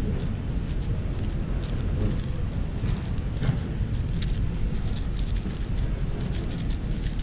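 Rapid, irregular clicking and clacking of a MoYu AoShi WR M 6x6 speed cube's layers being turned by hand, over a steady low rumble of hall background noise.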